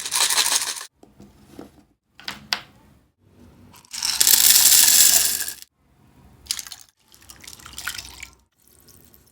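Kitchen sounds in short cut-together clips: loud bursts of running water, twice, with fainter stretches and a few sharp clinks between them.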